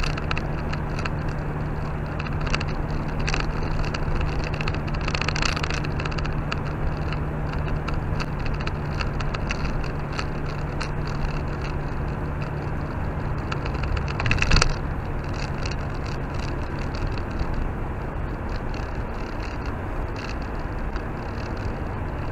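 A car driving on a snow-covered road, heard from inside the cabin: steady engine hum and road noise, with scattered small knocks and one louder bump about fourteen seconds in, after which the hum fades.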